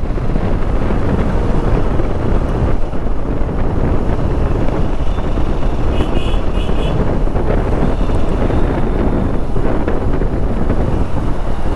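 Motorcycle riding along at steady speed, its engine running under heavy wind buffeting on the bike-mounted camera's microphone.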